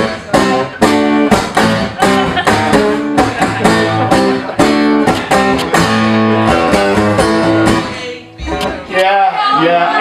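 Steel-string acoustic guitar strummed hard in a steady rhythm, with some chords held between the strokes; it drops away a little after eight seconds, and a man's voice comes in near the end.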